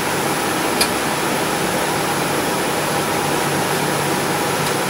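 A steady fan-like hiss, with one light click about a second in.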